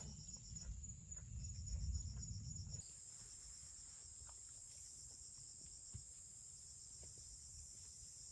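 Faint high-pitched insect chirping, pulsing rapidly, with a low rumble under it for the first three seconds. The rumble cuts off suddenly, and after that the insects continue as a steady high drone.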